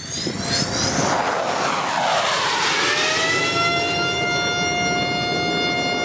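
Su-35S jet fighter taking off and climbing away, its twin AL-41F1S turbofan engines running at high power: a broad rushing jet noise with a whine that falls in pitch about a second in, then rises slightly and holds steady from about three seconds.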